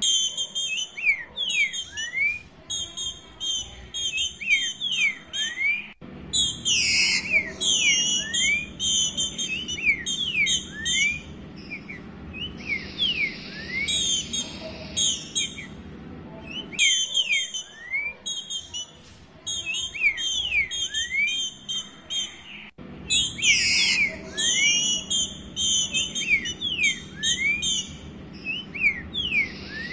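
Female green-winged saltator (Saltator similis) calling to solicit a mate: rapid high chattering notes mixed with many short falling whistles, repeated in bursts. The calling cuts off abruptly twice and starts again at once.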